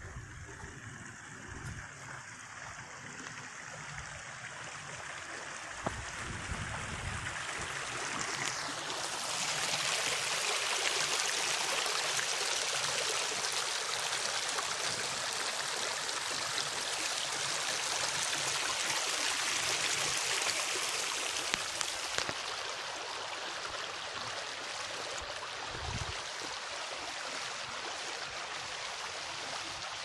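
Shallow stream water running and splashing over stones, a steady hiss that grows louder about nine seconds in and eases back a little after about twenty-two seconds.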